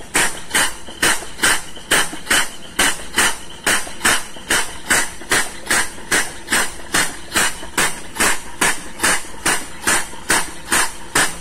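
Compressed-air-driven pump running steadily, giving rapid regular puffs of exhaust air, about four a second, as it sucks leftover crude palm oil out of a cargo tank.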